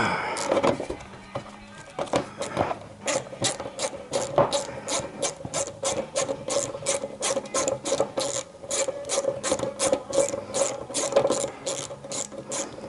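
Hand ratchet clicking in quick, even strokes, about three clicks a second, as small cowl fasteners are backed out by hand. The clicking starts about three seconds in, after a brief clatter of the tool being set on.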